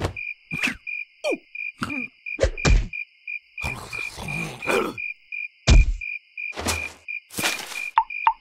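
Cartoon larva's short, wordless vocal noises (grunts, squeaks and sighs with sliding pitch) over a cricket chirping steadily about four times a second. A few sudden noisy effect sounds come in, the loudest about halfway through.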